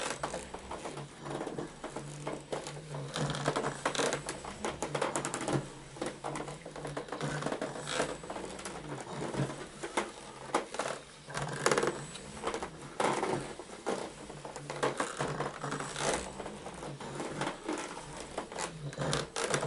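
Ninebot One S2 electric unicycle rocked back and forth in short moves, its hub motor humming and wavering in pitch, with irregular clicks, knocks and scuffs as the wheel and the rider's shoes work over the rugs.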